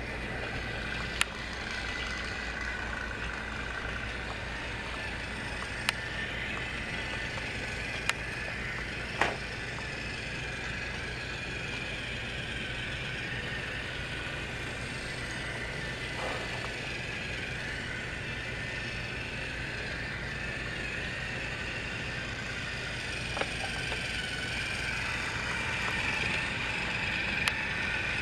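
Battery-powered TrackMaster toy train engine running along plastic track: a steady motor whir and wheel rattle, with a few sharp clicks, growing louder near the end.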